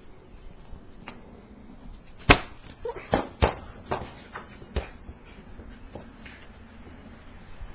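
A basketball bouncing on a hard floor: about six irregular thuds over some two and a half seconds, the first much the loudest, with light scuffling between and after.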